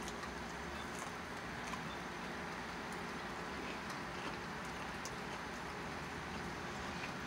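Steady outdoor background noise, like distant traffic and open air, with a few faint scattered clicks.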